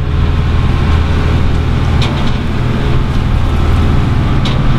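A steel workboat under way, its GM Detroit Diesel 4-71 two-stroke diesel engine running with a steady low drone, mixed with wind and sea noise.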